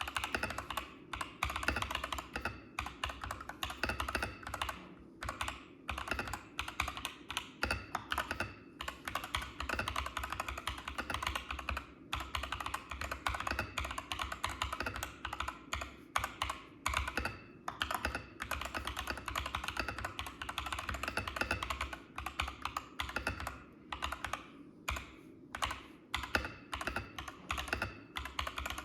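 Continuous fast typing on a Machenike KT68 mechanical keyboard with Akko Cream Yellow V3 Pro linear switches: a steady stream of key clacks with a deep thock, and brief pauses here and there.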